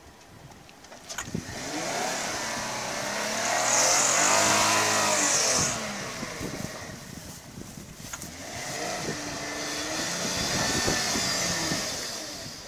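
Volkswagen Touareg engine revving up in two long surges as the stuck SUV tries to get moving on the slope. A high hiss rides on the first, louder surge.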